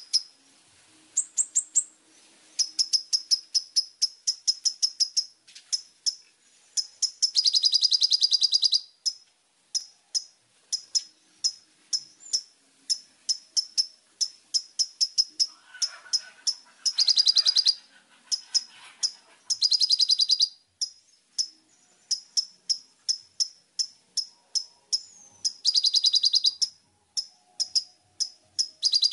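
Copper-throated sunbird (kolibri ninja) singing: a long run of high, sharp chirps, broken several times by fast, dense trills that last a second or two.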